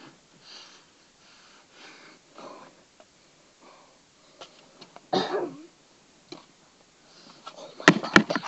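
A child breathing and sniffing close to the microphone, with one short, loud vocal sound about five seconds in. Near the end comes a quick cluster of knocks and bumps, the loudest part, as the camera is handled.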